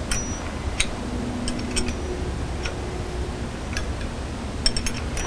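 Scattered, irregular light metallic clicks of a wrench and the steel halves of an anhydrous ammonia breakaway coupling being handled as its locking bolt is tightened, over a steady low background rumble.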